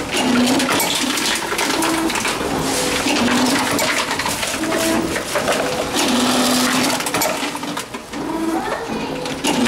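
Tomra Tx2 reverse vending machines taking in containers: short motor hums at two nearby low pitches, recurring about once a second, over clinking and rattling of bottles and cans.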